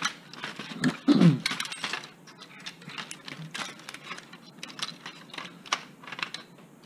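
Scattered clicks and light rattles of small plastic and metal parts as a taken-apart LCD projector's power board and wiring are handled and pulled loose. There is a brief grunt-like voice sound about a second in.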